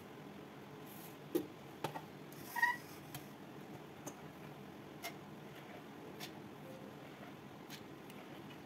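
Stainless steel bowl and mixer-grinder jar being handled with soaked urad dal: scattered light clicks and knocks of steel, with one brief ringing clink about two and a half seconds in.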